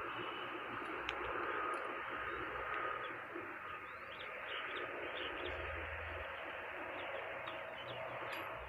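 Birds chirping, many short calls, over a steady background hiss.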